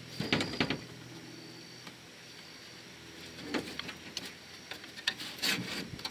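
Handling noise of hand work: scattered clicks and knocks as small parts and tools are picked up and set down and a metal panel is pressed into place, with a quick cluster of knocks just after the start and a busier run of knocks and rustling near the end.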